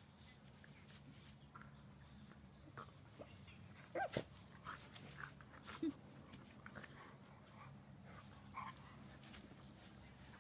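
Two dogs play-wrestling on grass: soft scuffling and a few short dog vocal sounds, the loudest about four seconds in.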